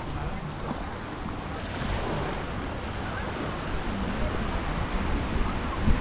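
Mediterranean surf washing onto a sandy beach, a steady hiss of small waves, with wind buffeting the microphone in low rumbles. Faint voices of beachgoers come through near the end.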